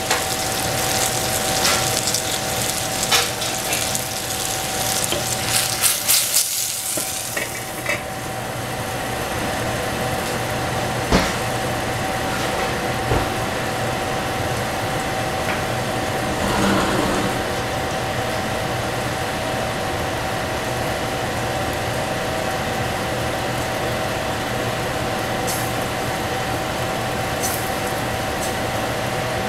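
Food frying in a pan, with a spatula clicking and scraping against the pan for roughly the first eight seconds. After that the sizzle goes on more evenly under a steady hum, with an occasional single click.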